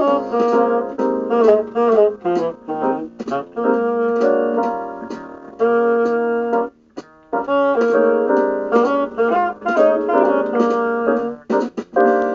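French bassoon playing a B-flat blues over a piano and guitar accompaniment, with a long held note midway and a short break soon after.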